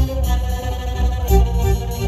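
Violin and button accordion playing a tune together live.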